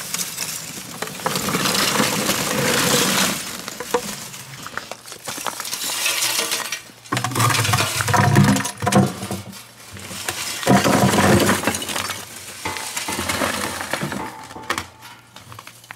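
Freshly made lump charcoal clattering and clinking as it is poured, first from a bucket into a cloth sack, then tipped out of a metal retort into a plastic pail. It comes in several pours of a second or two each.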